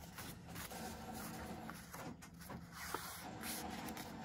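Faint rustling and rubbing of cardstock being folded and creased along a bone folder, over the steady hum of a printer running in the background.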